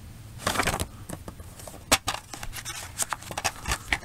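Handling noises: a folded paper booklet rustling about half a second in, then a string of sharp clicks and taps from a plastic DVD case being handled and closed.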